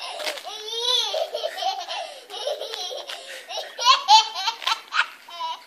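A toddler laughing and squealing in a high, wavering voice, with a few short, louder shrieks about four and five seconds in.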